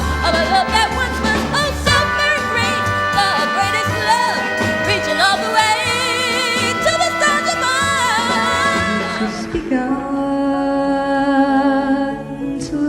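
Pop ballad music with a woman singing wordless, wavering held notes over a band with bass. About ten seconds in, the music changes to a softer passage of sustained tones.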